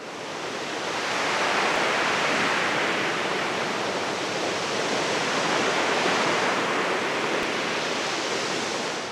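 A steady rushing noise with no rhythm or pitch, fading in over the first second or so and fading out at the end.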